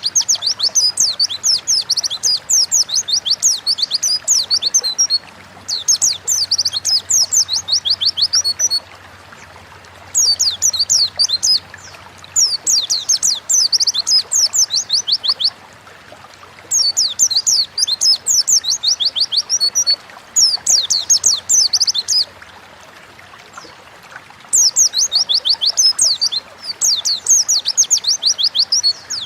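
White-eye (pleci) singing loudly, in phrases of fast, high twittering chirps, each phrase lasting a few seconds, with short pauses between.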